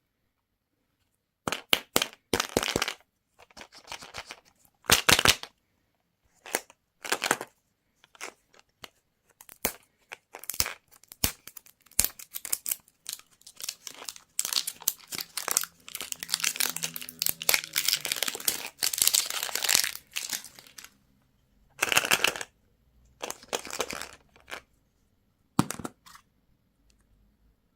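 Candy and toy wrappers being handled, crinkled and torn open in irregular bursts, with a longer stretch of continuous crinkling and tearing in the middle.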